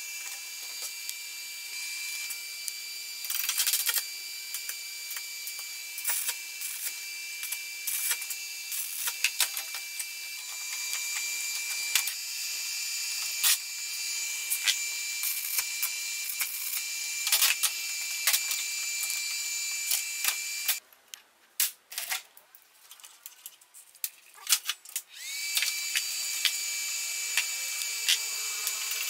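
Metal parts and pliers clinking and tapping against steel at a bench vise, many sharp clicks over a steady high-pitched whine. The sound almost drops out for about four seconds past the two-thirds mark, then the whine comes back.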